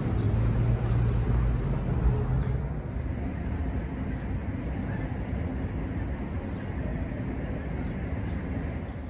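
Outdoor ambience: a low, steady engine drone that fades out about two and a half seconds in, followed by a steady low rumble.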